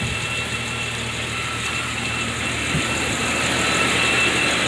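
1999 Jeep Cherokee's engine idling steadily.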